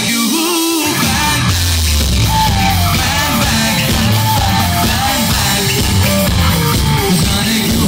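Loud music with a heavy bass line playing over a hall's loudspeakers, with a crowd yelling along. The bass cuts out briefly at the start and comes back in under a second later.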